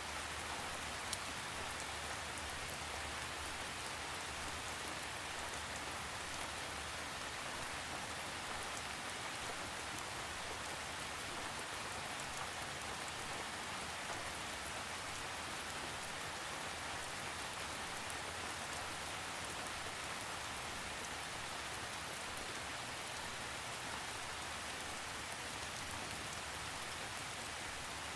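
Steady rain falling on a surface, an even hiss with a few louder individual drop ticks scattered through it and no thunder.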